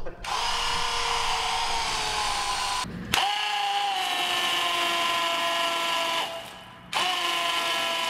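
Cordless impact driver spinning a three-stage dry sump scavenge pump in a water flow test: a steady motor whine in three runs, stopping and restarting about 3 s in and again about 6 s in, with a click at the first restart. Water hisses as it jets from the pump's outlet.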